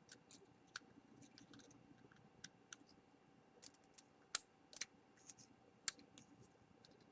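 Faint, scattered small clicks and ticks of a screwdriver tip working the tiny side screws on an iPhone 4's metal frame. A few sharper clicks come in the middle.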